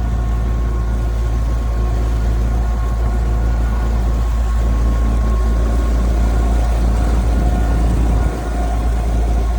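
A boat's engine running at a steady speed, a loud, even, low rumble with a few steady tones over it.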